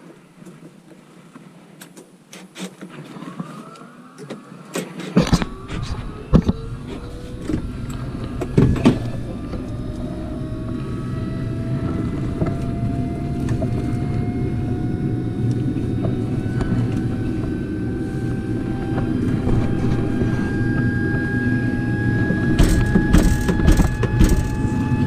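Carrier Infinity furnace's draft inducer motor starting and running, a steady rumble with a whine that rises slowly in pitch as it ramps up. There are a few knocks and clicks as it starts, and more clicks and rattles near the end.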